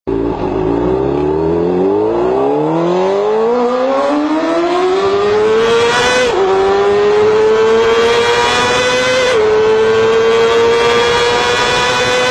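Motorcycle engine accelerating hard at high revs, its pitch climbing steadily for about six seconds. It then shifts up about six and nine and a half seconds in, each time dipping slightly in pitch before pulling on at a high, steady scream.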